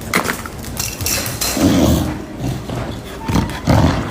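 Dog vocalising in short, low bursts during play, the loudest about halfway through and two more near the end.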